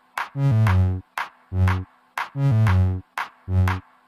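Background electronic music with a steady beat: short sharp hits alternate with held low pitched notes, the pattern repeating about every two seconds.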